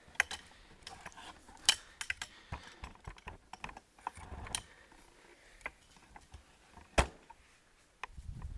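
Handling noise from a handheld camera moved around against a jacket: scattered light clicks and fabric rustles, with one sharp knock about seven seconds in.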